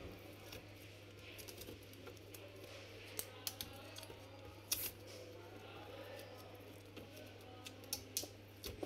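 Clear adhesive tape being peeled and scraped off a laptop motherboard by hand: faint crinkling and scratching with scattered sharp clicks, the loudest a little under five seconds in.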